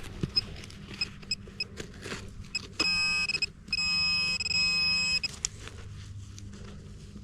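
Metal detector sounding: a few short faint beeps, then two long, loud buzzing tones about three and four seconds in, signalling metal close by.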